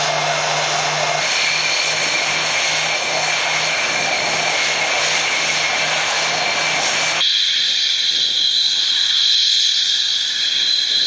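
Jet fighter noise: a steady, loud rush with a low tone pulsing about two or three times a second. About seven seconds in it cuts abruptly to a steady high whine over the rush.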